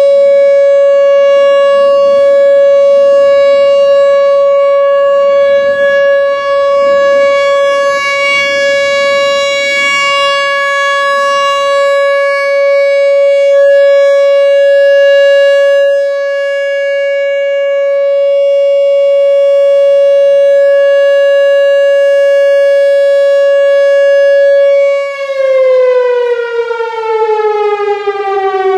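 Whelen Vortex R4 outdoor warning siren sounding its loud steady alert tone during a test. About 25 seconds in it shuts off and winds down, its pitch falling steadily.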